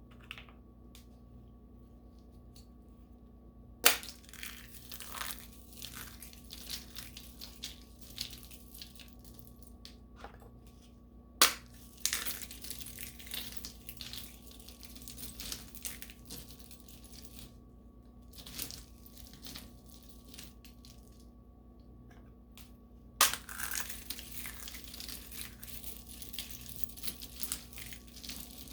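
Small plaster tiles being broken and crushed by hand: three sharp snaps, each followed by several seconds of gritty crumbling and crackling.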